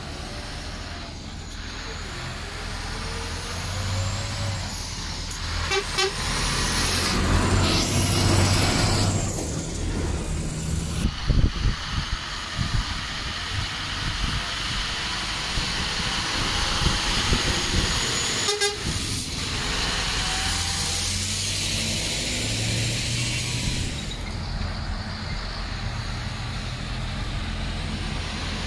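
Lorries driving by with their diesel engines running, the engine note rising and falling as they pass.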